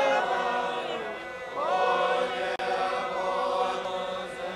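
A crowd of protesters chanting together in unison, in long held notes. A new phrase slides up in pitch about one and a half seconds in.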